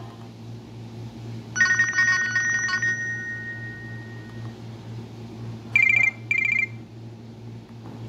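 Nokia 130's small loudspeaker playing short snippets of Nokia Asha 300 ringtones: a bright chiming jingle about a second and a half in that stops abruptly, leaving one note to fade away, then two short high beeps near six seconds.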